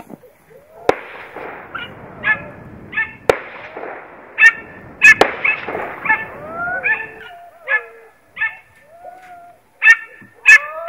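Hunting dog yelping in short, high, repeated calls, one or two a second, as it gives tongue running on a chase. A few sharp cracks sound in the first half.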